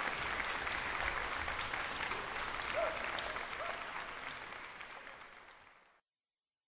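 Concert audience applauding, a dense patter of many hands clapping, fading out over its last two seconds and cutting to silence about six seconds in.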